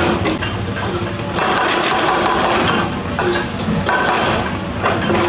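Hydraulic excavator engine running steadily, with repeated bursts of crunching and clattering from demolition rubble being broken and moved, and many sharp clicks throughout.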